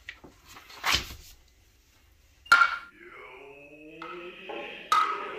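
Intro music: a short swell, then two sharp drum-like strikes about two and a half seconds apart, each left ringing, with several pitched tones sliding upward between them.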